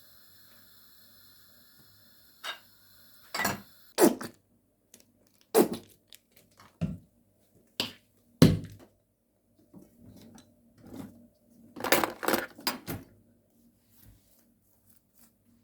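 Kitchen clatter: a run of separate sharp knocks and clinks of dishes and utensils being handled and set down, with a denser burst of clattering near the end.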